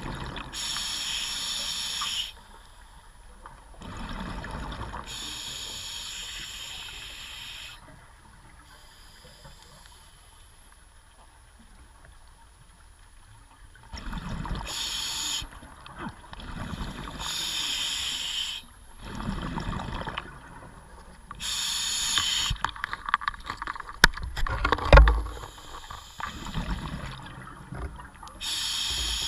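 Scuba regulator breathing heard underwater: hissing inhalations every few seconds alternate with rumbling bursts of exhaled bubbles, with a quieter stretch in the middle. A sharp knock about 25 seconds in is the loudest moment.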